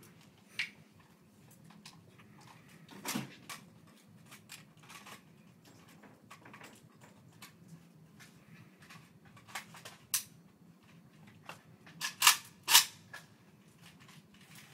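A jammed firearm's action being worked by hand to clear it: a string of sharp metallic clicks and clacks at uneven intervals, the loudest about 3 s in and a close pair a little past 12 s in.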